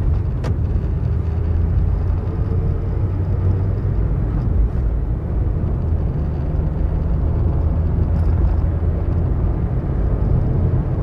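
Steady low rumble of a moving road vehicle heard from inside the cabin: engine and road noise, with a single sharp click about half a second in.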